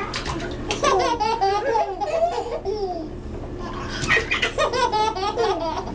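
Two babies laughing and babbling at each other in bursts of giggles, with a short lull midway before the laughter picks up again.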